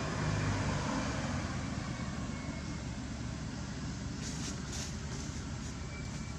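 Steady outdoor background noise: a low rumble under a constant hiss, with a few short, sharp rustles about four to five seconds in.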